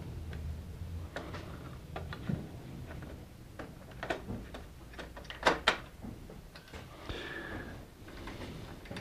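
Plastic clicks and knocks as the front-panel display assembly of an HP Designjet plotter is handled and fitted into its housing. Two sharp clicks about five and a half seconds in are the loudest.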